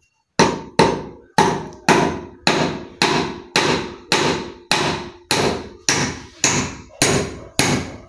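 Hammer driving a three-inch nail through a wooden board into a wooden post: about fifteen steady blows, roughly two a second, each with a short ringing fade.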